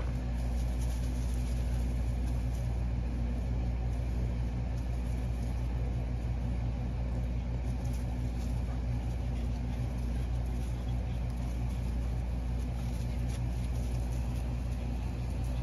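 A machine running with a steady, unchanging low hum.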